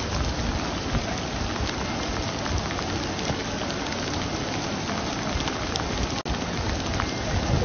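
Heavy rain falling steadily on wet paving, an even hiss with scattered drips. The sound drops out for an instant a little over six seconds in.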